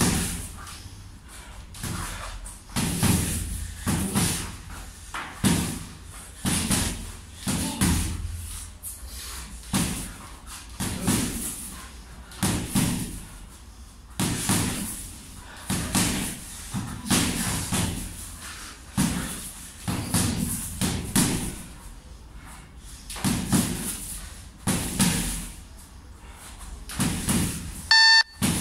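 Boxing gloves punching a heavy bag in combinations, with clusters of hits every second or two and short pauses between them. A brief beep near the end.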